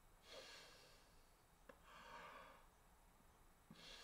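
Faint breathing of a man through a mouth held open around a pen between his teeth: three soft breaths, one starting just after the beginning, one about two seconds in, and one near the end.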